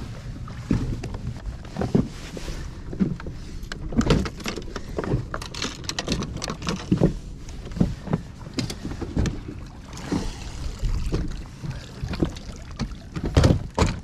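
Irregular knocks and thumps on a bass boat's deck as people move about and handle gear, over a steady low rumble of wind and water against the hull.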